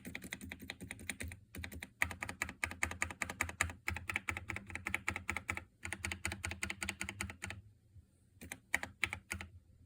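Fast typing on a Keychron K2 mechanical keyboard with Gateron Yellow linear switches: runs of quick keystrokes broken by brief pauses about every two seconds, with a longer pause near the end.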